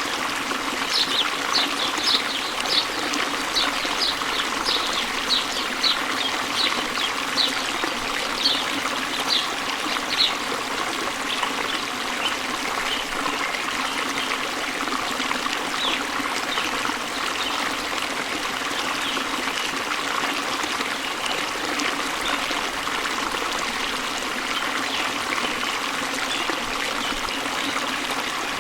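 Small stream trickling and babbling steadily. A bird calls over it in a run of short, high notes about two a second for the first ten seconds, with fainter calls later on.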